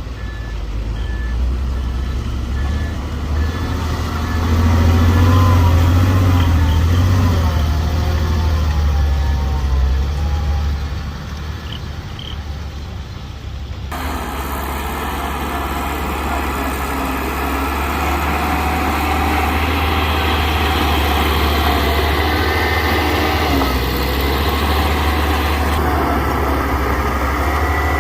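Diesel engines of earthmoving machines running, with a steady low drone and the engine note rising and falling in the first half. About halfway through the sound changes abruptly to a busier, noisier mix of machine sound.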